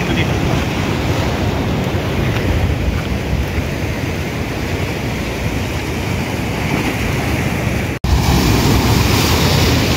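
Heavy sea surf breaking against a rock breakwater, a steady rush of rough water with wind on the microphone. The noise drops out for an instant about eight seconds in and comes back louder.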